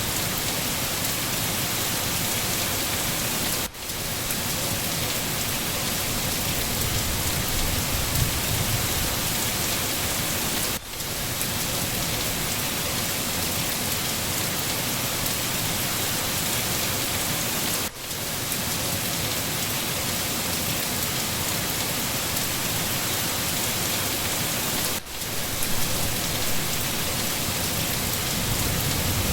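Steady rain falling in a forest, an even hiss of drops, with four brief dips in the sound about seven seconds apart.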